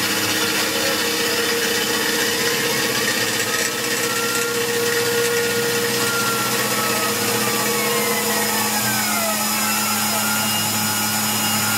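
Tormach PCNC 1100 CNC mill cutting a spiral grease groove: the spindle and end mill run steadily under an air-blast hiss, while the axis motor whine glides up and down as the table follows the helix, more so in the second half.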